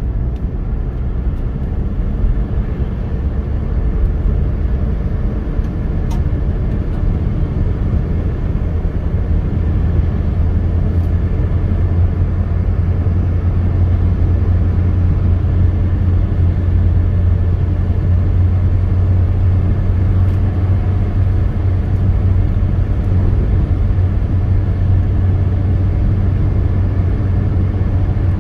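Steady low drone of a car driving at highway speed, heard from inside the cabin: engine and tyre noise, growing a little louder over the first several seconds.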